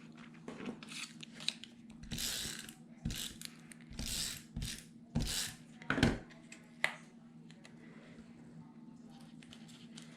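Paper being handled on a craft table: a string of short rustling, sliding scrapes, ending in a sharp click, over a steady low hum.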